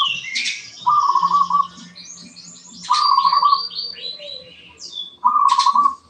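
A caged zebra dove (perkutut) gives its short, rapid pulsing coo three times, about two seconds apart. Eurasian tree sparrows chirp and chatter between the coos.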